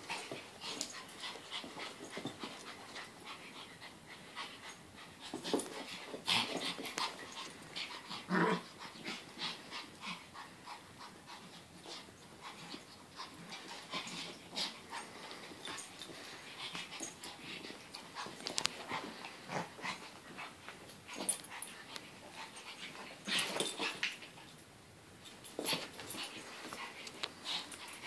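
Two small long-haired dogs play-fighting: a busy run of scuffling and breathing with many short clicks of paws and bodies on carpet. Now and then one dog gives a short vocal sound, most clearly about eight seconds in.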